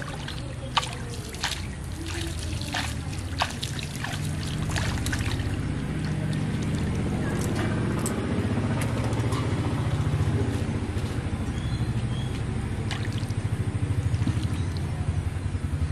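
Water splashing and trickling as hands scoop and dabble in a pond at the bank, with a run of sharp splashes in the first few seconds. A steady low motor drone builds underneath from about four seconds in.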